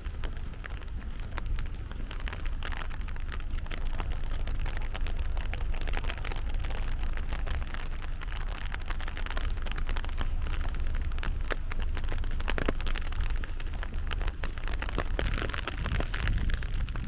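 Heavy rain falling in a dense, steady patter of drops, with a low rumble underneath.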